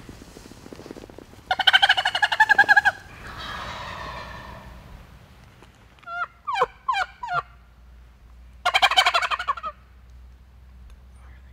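Wild turkey gobbling: two loud rattling gobbles, each about a second long, one about 1.5 s in and one near 9 s. Between them come four short, falling yelping notes in quick succession.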